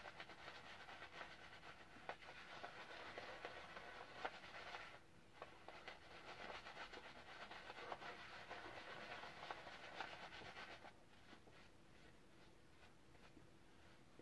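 Horse hair shaving brush scrubbing shaving lather on a face: a faint, crackly swishing of bristles through lather. It breaks off briefly about five seconds in, resumes, then falls away to a few faint ticks near eleven seconds.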